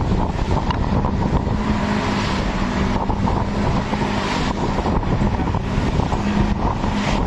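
Boat engine running steadily under way, with strong wind buffeting the microphone.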